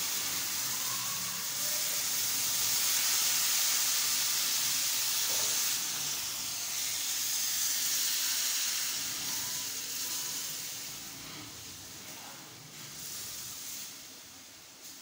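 Sugar syrup poured into wheat flour roasted in ghee in a hot pan, hissing and sizzling loudly as it turns to steam. The hiss is strongest a few seconds in, then slowly dies down as the mixture is stirred.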